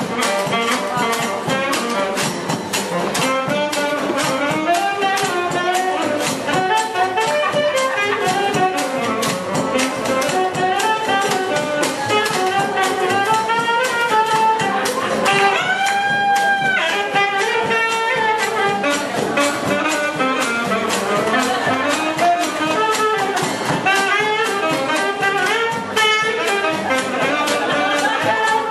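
Jazz band with brass horns playing over a steady beat, with one long held horn note about sixteen seconds in.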